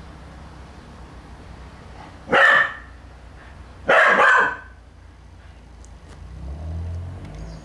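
Terrier puppy barking twice, about a second and a half apart, the second bark longer: play barks at a stalking cat.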